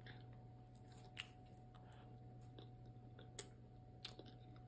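Near silence with faint chewing of a mouthful of peach cobbler and ice cream, a few soft clicks and a faint steady hum.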